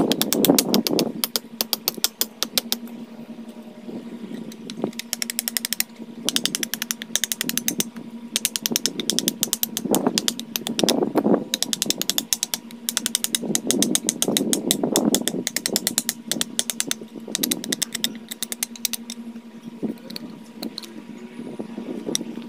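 A wooden tool handle being chopped and shaved to a taper with a hatchet and blade: rapid runs of sharp clicking and scraping, with heavier knocks about ten and fourteen seconds in, over a steady low hum.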